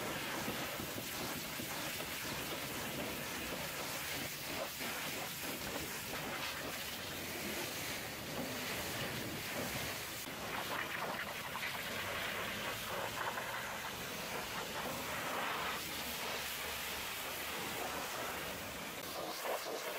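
Hot-water pressure washer lance spraying a semi truck's cab panels, fuel tank and wheel area: a steady hissing rush of high-pressure water spattering off the metal.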